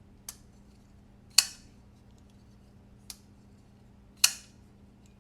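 Eutektik EFD folding knife on freshly fitted Skiff bearings being flicked open and shut twice: two quieter clicks and two loud, ringing snaps as the blade swings and locks up.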